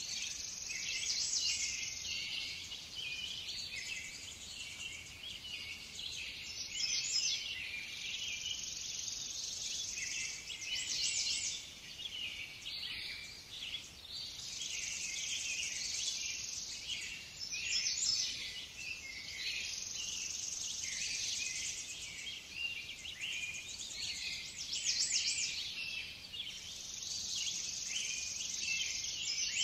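Dense chorus of small songbirds chirping and trilling continuously, many calls overlapping and swelling in loudness every few seconds.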